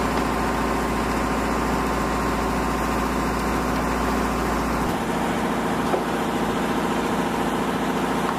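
Steady engine hum with several steady tones running under it. The low drone drops off abruptly about five seconds in, and the hum carries on.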